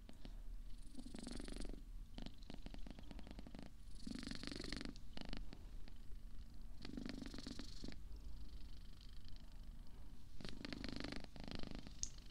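A cat purring right at the microphone, the purr swelling into louder bouts in time with its breathing and dropping back between them.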